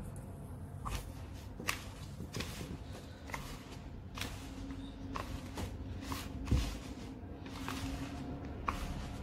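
A hand rubbing and squeezing ground rice flour and sugar together in a bowl: a soft, dry scrunching a little more than once a second, with one low bump about two-thirds through.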